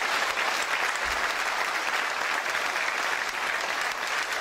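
A large audience applauding: steady, dense clapping.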